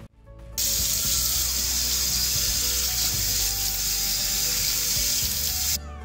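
Kitchen tap running water onto the clear plastic lid of a Black+Decker mini chopper in a stainless steel sink: a steady hiss that starts about half a second in and cuts off shortly before the end.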